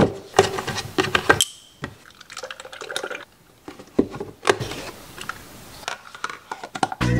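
Chocolate milk poured from a cardboard carton into a plastic tumbler, gurgling, with sharp clicks and taps from the carton and cup being handled. Near the end a plastic lid with a straw is fitted onto the tumbler.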